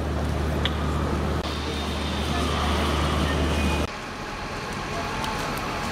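City street traffic noise with a steady low engine drone from a nearby vehicle, which cuts off abruptly about four seconds in, leaving quieter street noise. Passers-by talk faintly.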